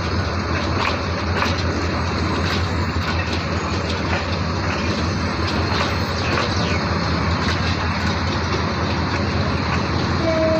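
Bangladesh Railway intercity passenger coaches rolling past close by: a steady rumble of wheels on the rails with irregular clicks and knocks from the running gear.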